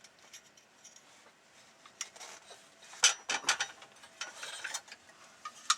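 Small steel parts and tools being handled: light metallic clicks, clinks and scrapes in two short clusters about three and four and a half seconds in, with a sharp click near the end.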